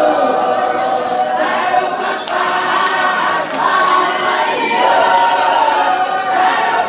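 A church congregation singing together, many voices at once, sustaining long held notes.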